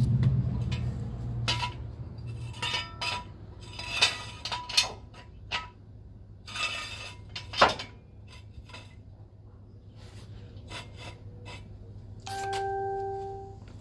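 Metal objects clinking and knocking: a scattered series of sharp clicks and clanks, with a short steady tone near the end.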